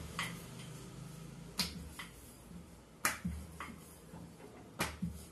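Rolling pin clicking and knocking against the rolling board while roti dough is rolled out: a series of sharp, irregular clicks, roughly one every second, some coming in quick pairs.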